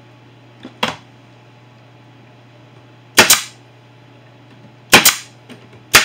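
A pneumatic brad nailer fires three times, driving brad nails into the wood: sharp cracks about two seconds and then one second apart. A lighter knock comes just under a second in, before the first shot.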